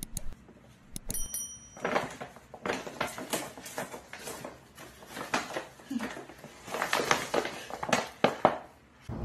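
Paper shopping bag crinkling and rustling in irregular bursts as a small fluffy pet is worked down into it, with a brief thin high-pitched squeak about a second in.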